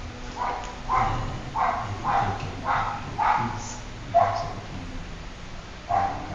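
A dog barking in a run of short barks, about two a second, then a pause of nearly two seconds and another bark or two near the end.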